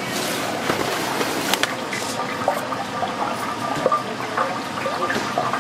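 Liquid running and splashing, with a few sharp clicks.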